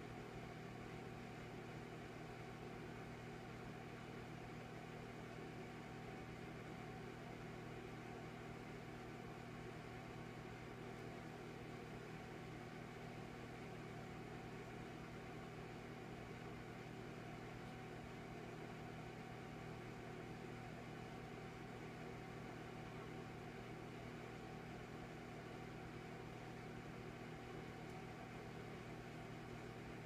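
Electric fireplace running: a faint, steady mechanical hum with no crackle.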